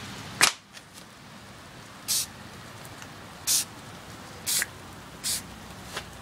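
Aerosol spray-paint can giving short, light bursts of spray to mist a coat of paint onto a PVC bow: five brief hisses about a second apart. The first, about half a second in, is the sharpest and loudest.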